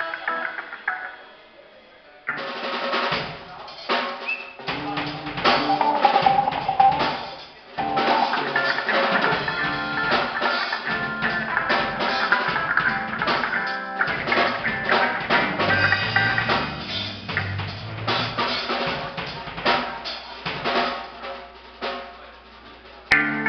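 Live drum kit played during a band's sound check, with some pitched instrument notes sounding along with it. The playing drops away briefly about two seconds in and again near the end.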